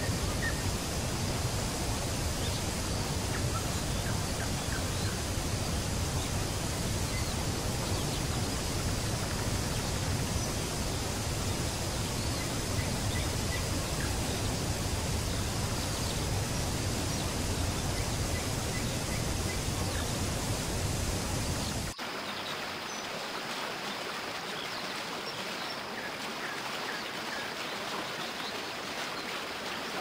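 Waterfall pouring into a pool: a steady rush of falling water, with faint bird chirps here and there. About three-quarters of the way through the deep rumble cuts out abruptly and the rush turns thinner and a little quieter.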